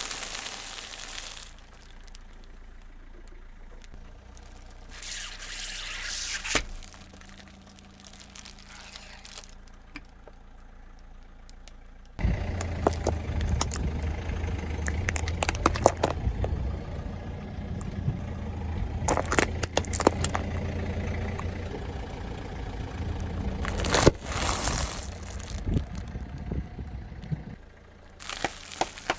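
Car engine running low, then louder from about twelve seconds in as the car moves, with crackling and crunching as its tyres crush objects. Several short rushes of hiss-like noise come through.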